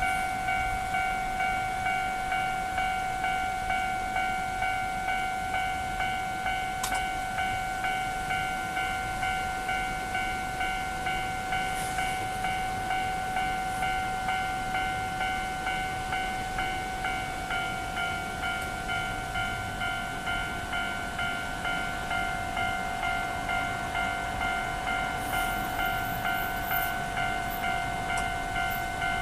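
Japanese railway level-crossing alarm ringing its electronic bell, a ding repeating quickly and evenly while the barriers are down.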